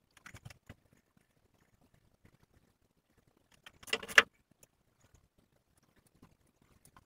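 Scissors snipping through hair: a few light snips in the first second, then a louder, longer cut about four seconds in.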